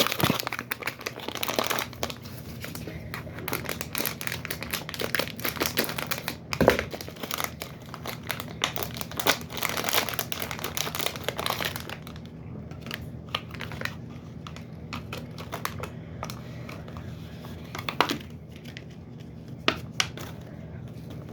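Crinkly packaging being crinkled and torn open by hand, a toy being unwrapped: dense crackling for about twelve seconds, then sparser rustles and a couple of sharp clicks.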